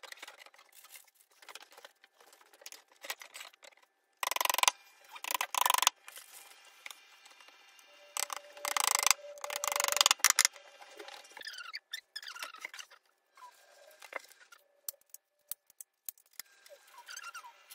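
Sound of flat-pack furniture assembly played back sped up: rapid clicks, knocks and rustles of panels and fittings being handled. Louder bursts of clatter come about four to six seconds in and again about eight to ten seconds in, and short squeaky chirps follow in the second half.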